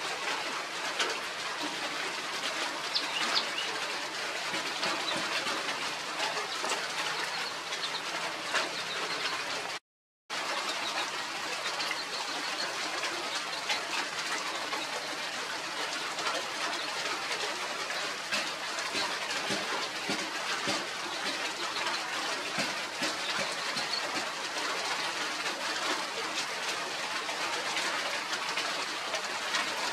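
Steady outdoor background hiss with scattered small bird chirps, most of them in the first few seconds. The sound cuts out completely for a moment about ten seconds in.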